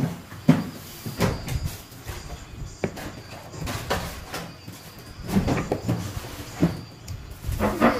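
A frosting spatula and knife knocking and scraping against a foil-covered cake base and a plate while cream frosting is spread, in irregular taps and scrapes with no steady rhythm.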